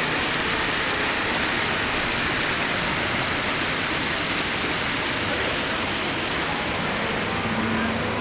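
A steady rushing noise, even and unbroken, like running water.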